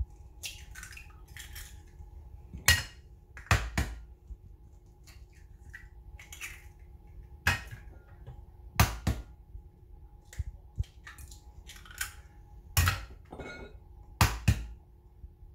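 Eggs being cracked open into a ceramic mixing bowl: sharp taps of shell, some in quick pairs, every few seconds, with small crackling sounds of shell between them, over a faint steady hum.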